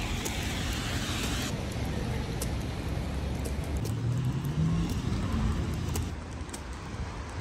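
City street traffic: a steady rumble of vehicles going by, with one engine's pitch rising about four seconds in as it pulls away.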